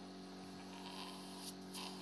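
Faint steady electrical hum, with a soft click about one and a half seconds in and a short hiss just after it.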